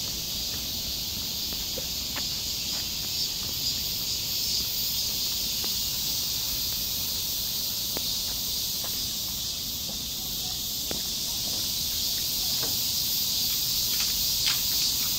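A steady, high-pitched drone from a chorus of insects in summer greenery, with a few faint clicks scattered through it, more of them near the end.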